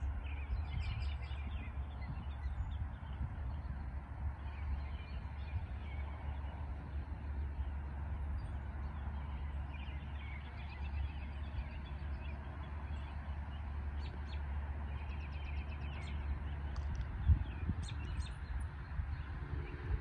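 Small songbirds chirping and singing in short calls and trills over a steady low rumble. A single sharp thump sounds late on.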